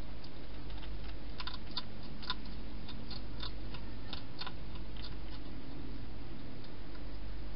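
Wild hedgehog crunching food from a bowl inside a plastic feeding box: a run of irregular sharp clicks that dies away about five seconds in, over a steady low hum.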